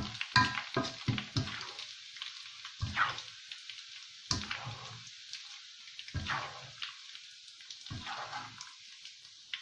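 Hot oil sizzling in a wok as freshly fried shredded chicken floss drains in a wire-mesh strainer held above it, the frying done. A quick run of taps in the first second and a half, then a few scattered knocks and scrapes of a spatula against the strainer.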